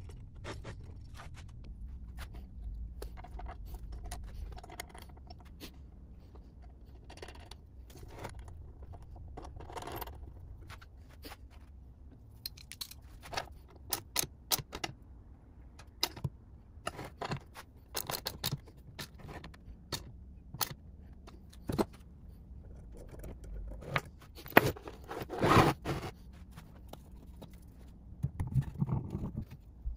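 Small metallic clicks, clinks and scrapes of hand tools and metal motor parts as a golf cart electric motor is reassembled: brushes pressed into the brush holder, end-housing bolts driven in with a nut driver, and the housing fitted over the armature. Louder knocks and a scrape come near the end.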